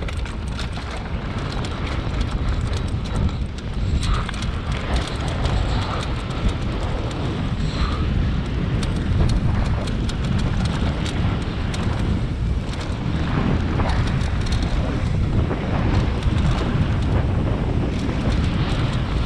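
Enduro motorcycle being ridden, its engine under heavy wind buffeting on the POV camera's microphone, with frequent short clicks and knocks from the bike over rough ground.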